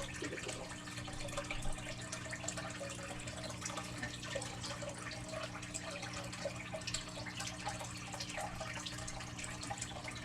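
Aquarium filter running: a steady low hum with water trickling and splashing into the tank.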